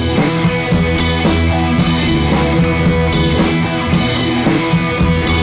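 Rock background music with electric guitar and a drum kit keeping a steady beat.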